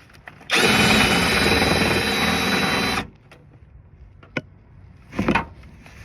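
A cordless power tool runs steadily for about two and a half seconds, then stops sharply, backing out one of the 10 mm bolts that hold the air suspension compressor. A few light clicks follow.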